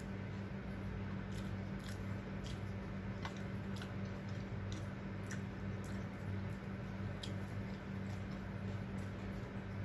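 A person chewing food close to the microphone, with scattered short crisp clicks and crunches, over a steady low hum.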